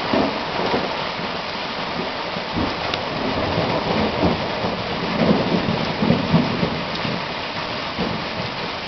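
Heavy rain pouring down in a thunderstorm, a steady dense hiss, with thunder rumbling and swelling louder about five to six seconds in.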